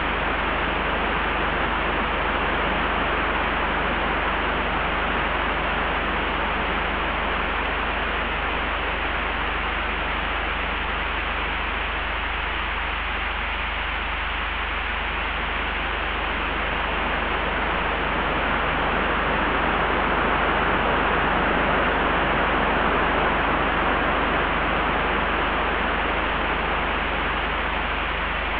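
Layered ambient wind: a steady rushing hiss that swells into a stronger gust about two-thirds of the way through, over a constant low rumble.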